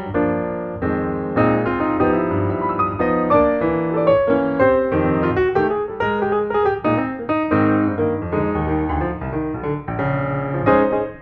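Background piano music, a continuous flow of notes and chords.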